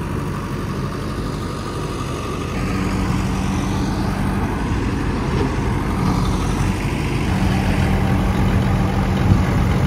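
Heavy diesel engines of a JCB backhoe loader and a combine harvester running steadily, the machines working to free the harvester from mud. The engine note grows a little louder about two and a half seconds in.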